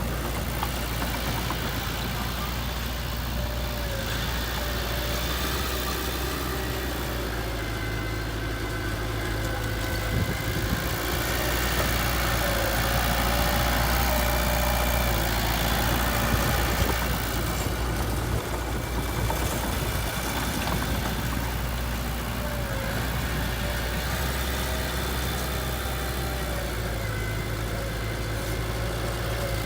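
Heavy diesel engine running steadily near idle, growing a little louder for a few seconds midway.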